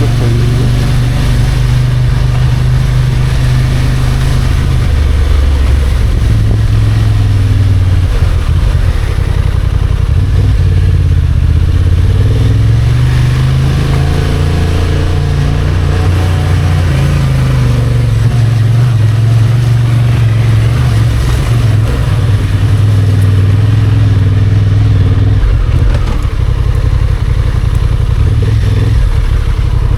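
Motorcycle engine running under way, its pitch rising and falling several times with throttle and gear changes.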